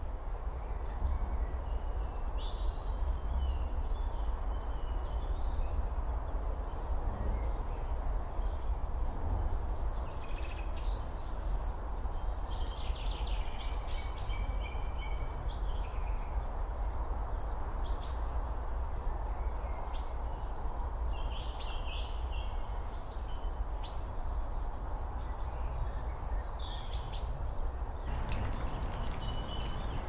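Small birds chirping and calling on and off over steady low background noise. Near the end the calls stop and water drops start falling, dripping into a puddle.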